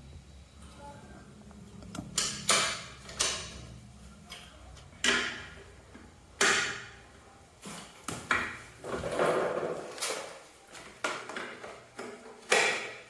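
About a dozen sharp metallic clinks and knocks at irregular intervals, as tools and scooter parts are handled during restoration work. A faint low hum under the first half fades away.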